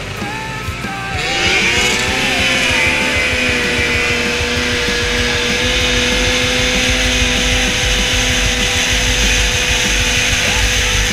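A 1994 Arctic Cat 440 Cougar snowmobile's two-stroke engine launching from the start line: the pitch sweeps up hard about a second in, then it holds at a steady high pitch at full throttle down the track.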